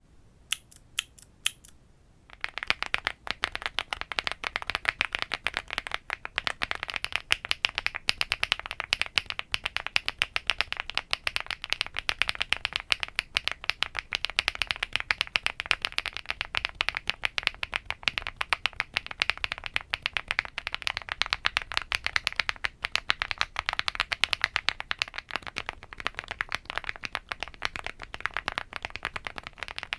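Fast typing on a WOB Rainy75 mechanical keyboard with an FR4 plate: a dense, continuous stream of keystroke clicks. It opens with four single clicks before the typing starts about two seconds in.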